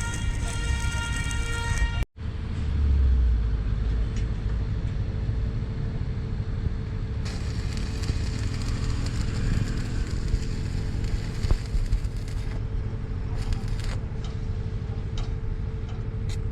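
Machinery running on a construction site: a steady low rumble with a constant hum, a high whine over it for the first two seconds, and a break for an instant about two seconds in.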